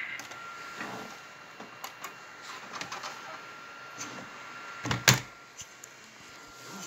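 Clicks and knocks of hands working around a desktop computer and its desk, with one loud thump about five seconds in. A faint steady high whine runs underneath.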